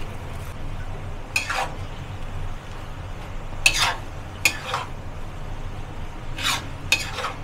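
Metal spatula scraping around a wok as rice vermicelli is stir-fried with shredded pumpkin and cabbage: about five scrapes, singly and in pairs, over a low sizzle and a steady low hum.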